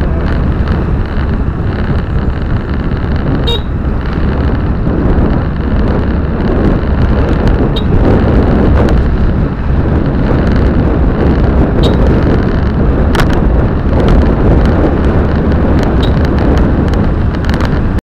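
Steady rumble of a car driving, picked up by a camera mounted on the windscreen, with a few sharp clicks or knocks scattered through it.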